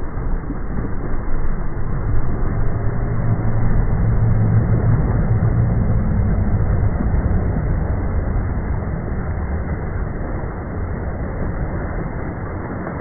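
Deep rumbling rush of surging water as a whale breaches up through a spray. It builds at the start, is strongest about four to seven seconds in, then slowly fades.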